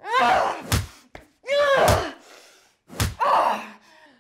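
Three high-pitched cries from a person's voice, about a second and a half apart, each with a sharp slam or smack.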